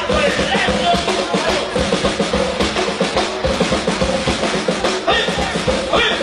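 Norteño band music, a huapango, with the drum kit to the fore playing a busy run of rapid strokes over the band's held notes.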